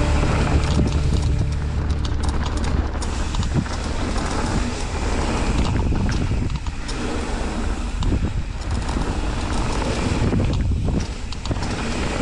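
Mountain bike riding fast down a dirt trail: wind buffets the microphone while the tyres crunch over dirt and the bike rattles and knocks over bumps.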